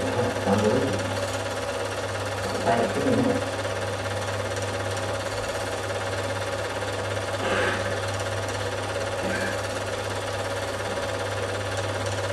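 Film projector running: a steady whirring mechanical clatter over a low hum.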